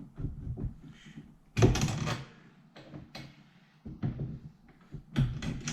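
Small metal hardware being handled: short clicks and knocks as cap screws are set through the rack's brackets, with a louder clatter about a second and a half in and another near the end.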